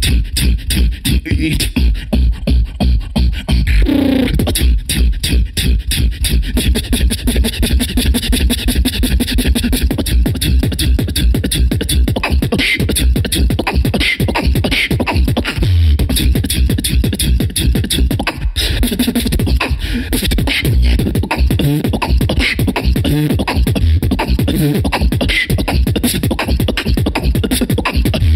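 Human beatboxing into a handheld microphone: a fast, unbroken vocal beat of heavy bass kicks and sharp clicks, with a split-second break about eighteen seconds in.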